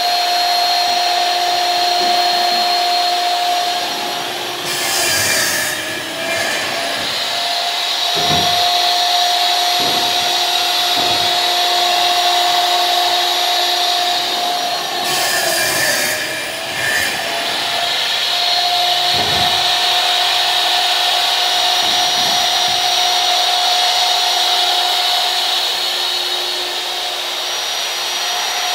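Vertical panel saw's motor running with a steady whine. Twice, about five and fifteen seconds in, the blade cuts through a panel with a short burst of hiss and the motor's pitch sags briefly under the load. A few dull thumps come as the panels are handled.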